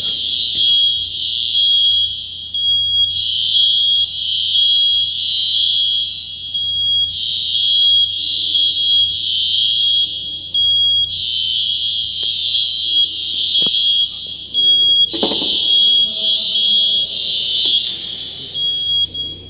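Fire alarm sounder in alarm, set off by a smoke detector under test on an addressable system. It sounds a high-pitched tone in repeating groups of three pulses, each group about four seconds apart.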